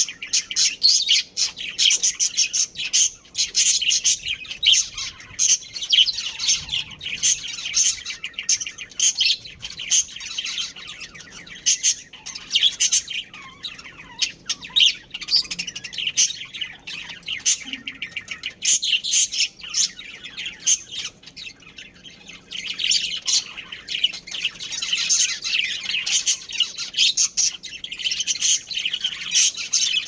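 Budgerigars chirping and chattering, a dense stream of rapid, high chirps that thins out in the middle and picks up again near the end.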